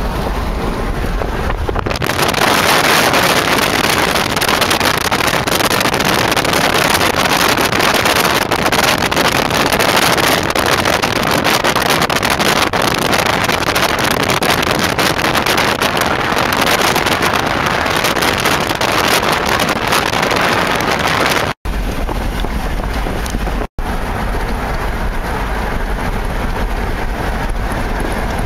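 Wind rush and road noise of a car moving at highway speed, a loud, steady rushing hiss. After two brief dropouts about three quarters of the way through, it settles to a quieter, lower steady drone.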